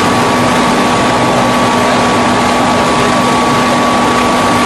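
Hydraulic single-spindle veneer peeling lathe running while it peels a log into face veneer. The machine noise is loud and steady, with a constant high whine over a low hum.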